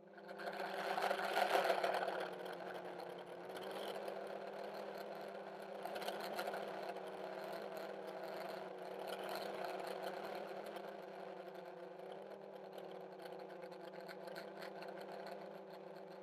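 Armattan CNC 355 quadcopter's brushless motors and propellers whining in flight, picked up by a camera riding on the frame. The whine swells loudest about one to two seconds in, then holds as a steady hum with small rises and falls.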